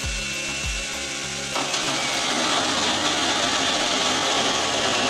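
WORKPRO 12V cordless mini chainsaw's motor running at full speed, then about a second and a half in the chain bites into a 2x1-inch strip of wood and saws steadily through it, the cutting noise louder than the free-running motor.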